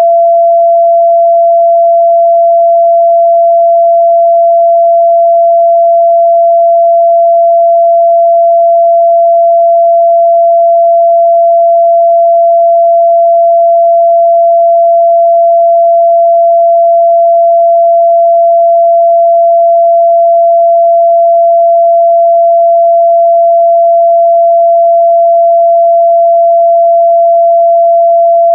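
A continuous, steady 678 Hz sine-wave test tone, a single pure pitch held at a constant level with no change.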